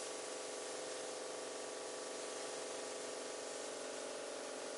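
Steady faint hiss with a low, unchanging hum underneath: workshop room tone, with no distinct tool or work sounds.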